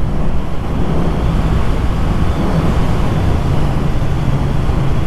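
Triumph Thruxton R's parallel-twin engine running steadily at cruising speed, with wind rushing over the microphone.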